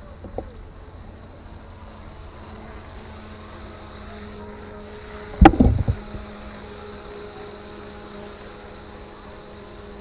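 Steady drone of a motorboat engine out on the river, with one loud, sharp knock a little past halfway.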